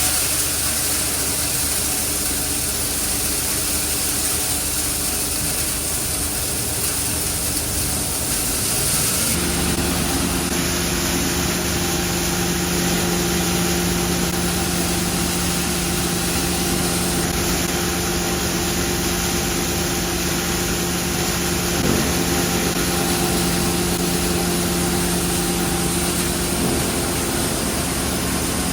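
FRS BK 60 cable granulating plant running with a steady mechanical hum and hiss. About nine seconds in the sound changes and a steady low hum tone comes in.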